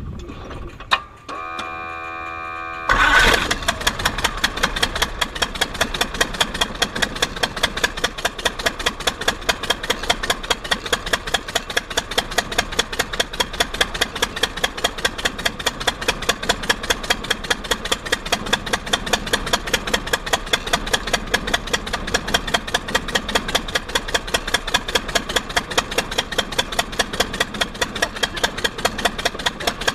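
Verner 3V three-cylinder radial engine on a Legal Eagle XL ultralight being started: a click and a short steady whine as it is cranked, then it catches about three seconds in and settles into idling with an even pulsing beat.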